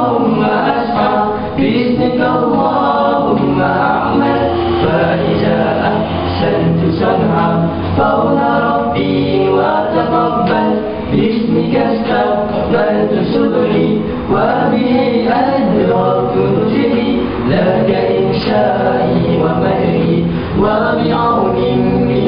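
Male a cappella nasyid group singing in harmony, with a low voice holding notes under the lead and backing voices.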